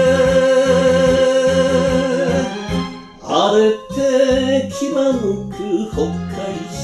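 Enka song sung by a woman with band accompaniment: she holds one long note with vibrato, breaks briefly about three seconds in, then starts a new phrase that slides downward near the end.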